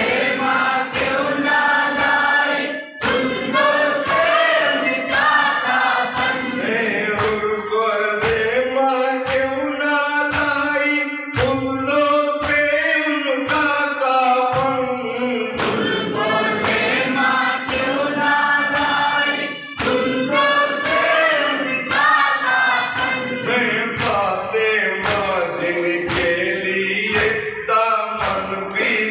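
A group of men chanting a Muharram mourning lament (noha) together, with rhythmic chest-beating (matam) slaps keeping time about one and a half times a second.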